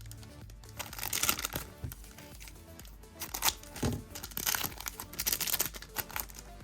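Foil trading-card pack wrapper crinkling as it is handled and torn open, in two bouts: about a second in, and again from about three and a half seconds to six. Background music plays throughout.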